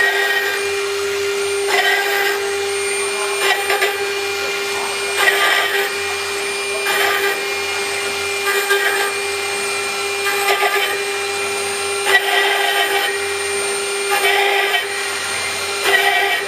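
Stone CNC router's water-cooled spindle running with a steady whine, with a short burst of grinding cutting noise about every two seconds as the bit engraves lettering into stone.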